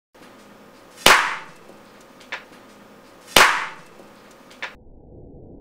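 Two sharp, loud cracks a little over two seconds apart, each fading over about half a second and followed about a second later by a faint click: a Tiberius T8.1 paintball marker on CO2, tuned to full power, firing a 6.2-gram breaker ball at a leather-covered ballistic gel block.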